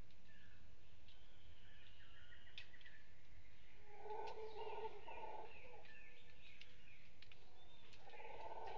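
Howler monkeys calling from the forest in two pulsing bouts, one about four seconds in and another near the end. Small birds chirp and whistle throughout.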